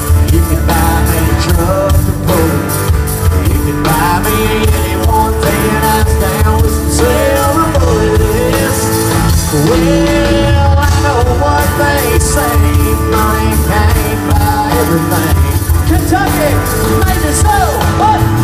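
Live country-rock band playing loudly: electric guitars over bass and drums.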